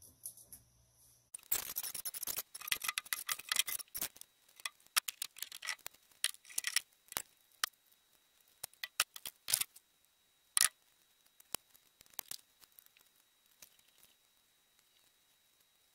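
Thin, flexible basket-weaving branches being handled and bundled, clicking and crackling against each other: dense crackling for a few seconds, then scattered sharp clicks.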